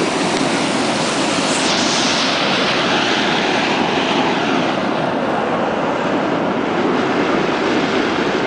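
Floodwater rushing and churning in a steady, loud roar. The hissing top of the sound is strongest a couple of seconds in, where the torrent surges through a fence, and softens after about five seconds.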